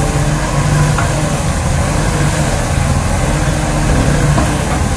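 Diesel engine of a Mitsubishi forklift running steadily as it works a large container.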